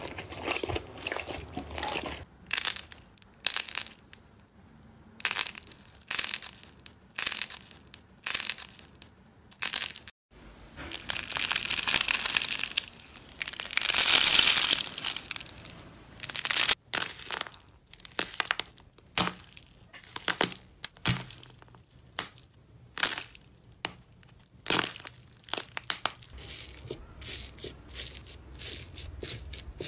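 Crunchy slime being pressed and squeezed by hand: a run of sharp crackling, crinkling strokes, with a longer, louder crackling stretch about halfway through.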